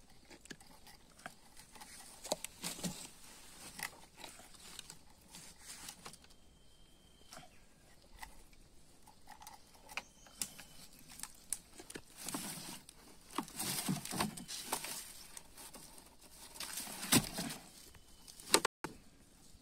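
Nylon fishing netting rustling and scraping against a plastic bucket while a large giant snakehead is handled and worked into a net bag, with scattered clicks throughout and louder scuffing bursts past the middle.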